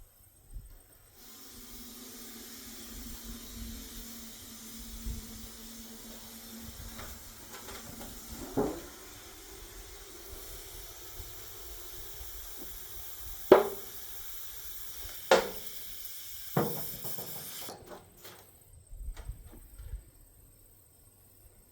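Refrigerant gas hissing in a steady stream into an old dented oil can to pressurise it and push the dent out. There is a low hum under the hiss for its first half and four sharp knocks in its second half, and the hiss cuts off near the end.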